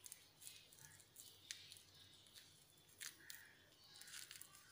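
Near silence with faint, scattered soft clicks and scrapes of a kitchen knife slitting a peeled ripe banana lengthwise.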